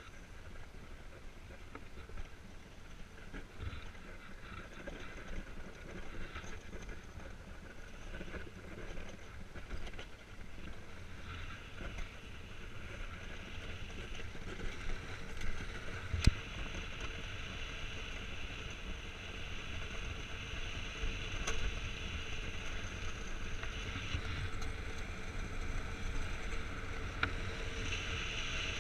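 Steady hiss and low rumble of an iceboard's runners gliding over frozen lake ice, growing louder past the middle, with a sharp knock about sixteen seconds in.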